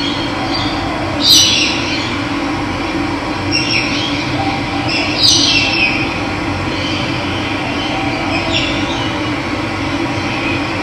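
Steady rushing of running water. Over it a bird calls about four times, each call a quick falling note; the loudest come about a second in and about five seconds in.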